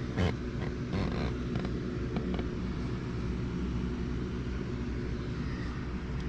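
Steady, low engine drone of a running vehicle, with a few light clicks and knocks over it.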